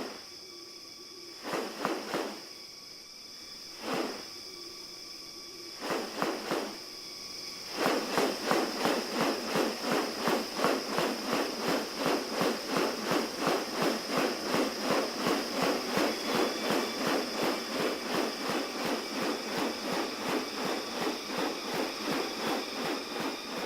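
Rainforest insects droning on one steady high note. Over it come three short bursts of sound early on, then from about a third of the way in a steady, even pulsing of about two or three strokes a second that runs on.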